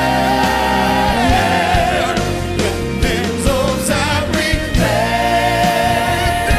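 Christian worship song: a singing voice with wavering vibrato over a steady, full accompaniment.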